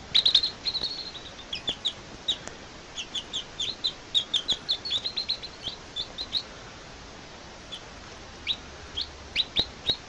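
Baby chicks peeping: a quick run of short, high peeps for the first six seconds or so, then only a few scattered peeps near the end.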